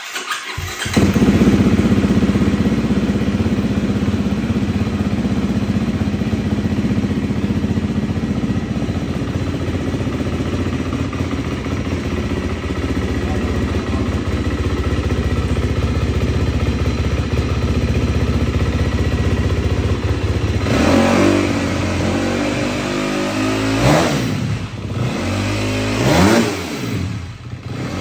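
The single-cylinder four-stroke engine of a 2022.5 KTM 250 SX-F dirt bike, on its stock exhaust, starts up about a second in and idles steadily. It is then revved with a few sharp throttle blips, each rising and falling in pitch, over the last several seconds.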